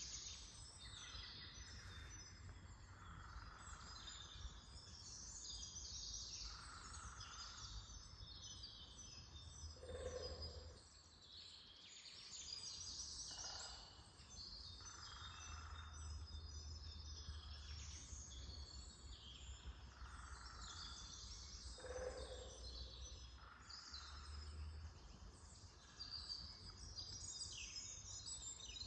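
Early-spring forest birdsong at morning: many small birds chirping and trilling at once over a low steady rumble, with a lower call standing out twice.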